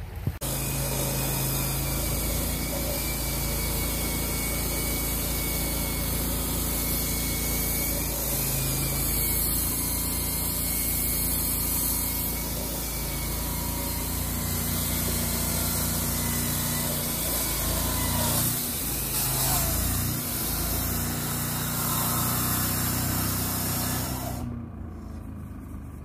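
Engine-driven construction machinery running steadily: a constant low hum under a loud hiss. It cuts off abruptly about a second and a half before the end.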